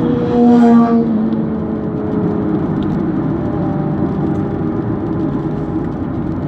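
Inside the cabin of a moving 2007 Hyundai Tucson with its 2.0-litre four-cylinder engine: steady engine drone and tyre rumble on a wet road. In the first second a louder engine note stands out, then eases off and slowly drops in pitch.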